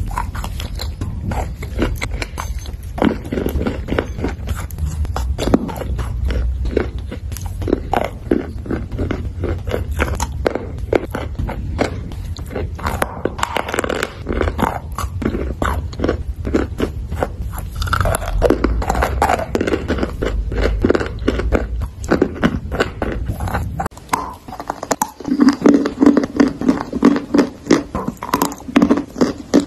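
Close-miked biting and chewing of dry edible clay lumps: a dense run of irregular crisp crunches and crumbling. A low hum runs beneath the first part and drops out about 24 seconds in, where a different recording begins with louder, more separate crunches.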